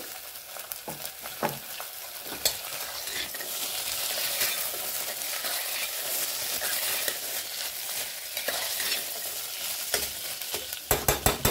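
Soaked raw chickpeas and onions sizzling in hot oil in a pressure cooker while a metal ladle stirs them, scraping and knocking against the pot. A quick run of sharp clacks comes near the end.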